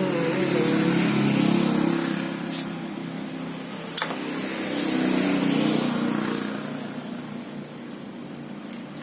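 A machine running with a steady hum that grows louder and then fades, with one sharp click about four seconds in.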